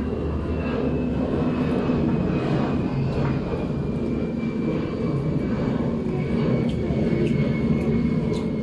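Steady engine drone with a faint high whine that slowly falls in pitch.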